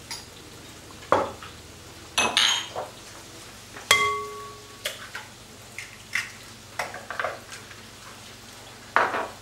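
Kitchenware clinking and knocking: a spoon tapping against bowls and dishes while dough ingredients are added and mixed, with one clear ringing clink about four seconds in.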